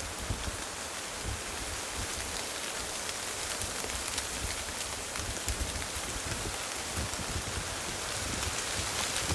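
Steady rain pattering on vegetation, an even hiss with fine ticks, over a low rumble that comes and goes.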